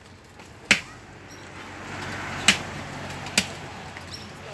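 Three sharp chopping blows into tree wood, irregularly spaced about a second apart, as a tree near power lines is cut. A rustling noise swells in the middle and fades.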